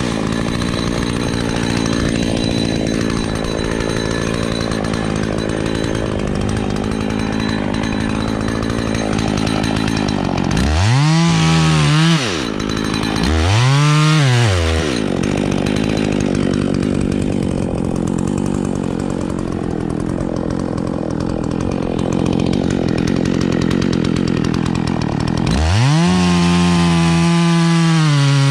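Two-stroke chainsaw running, revved up and back down twice, then held at high revs near the end.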